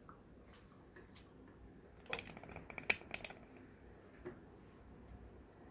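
Faint clicks and taps of metal chopsticks against a dinner plate and a small sauce bowl: a quick cluster a couple of seconds in and one more tap later.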